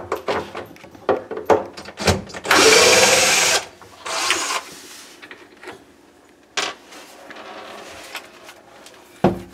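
DeWalt 18-volt cordless drill running in a loud burst of about a second, its pitch rising as it spins up, then a shorter second burst, backing out the screws that fasten a countertop to the base cabinets. Knocks and clicks of the drill being handled and fitted to the screw come before it.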